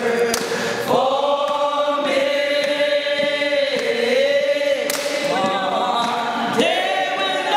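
A group of voices singing a gospel hymn together, holding long drawn-out notes, with a new phrase starting in the last couple of seconds.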